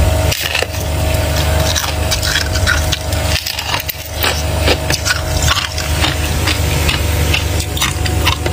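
Thick freezer frost being scraped and crunched: irregular rasping scrapes over a steady low hum.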